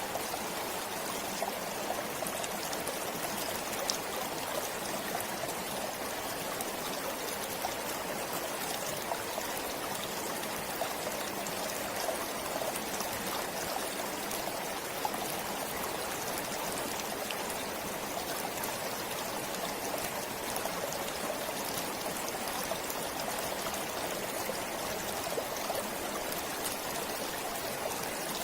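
Small stream flowing steadily, a continuous rush of water with a constant scatter of little splashes and trickles.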